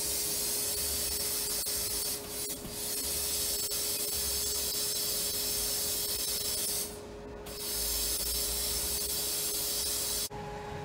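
Hand-held sandblast gun with a homemade brass nozzle firing inside a blast cabinet: a loud, steady hiss of compressed air that stops briefly twice, around two seconds in and about seven seconds in, and cuts off suddenly about ten seconds in.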